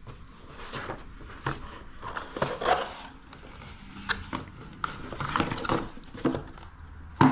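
Cardboard box being opened and a coiled power cable taken out: irregular rustling, scraping and soft knocks of cardboard and cable being handled, with a sharper knock near the end.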